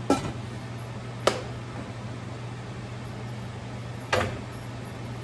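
A stainless steel pan lid clinks as it is set onto a large stainless frying pan, with two more sharp knocks about a second in and near the end. A steady low hum runs underneath.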